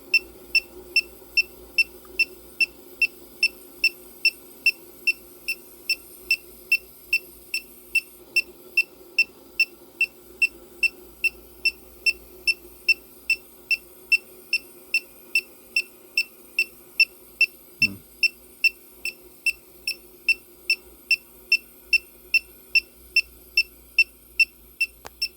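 Electronic refrigerant leak detector beeping steadily, about two short beeps a second, at its even searching rate with no leak picked up. A faint steady low hum runs underneath.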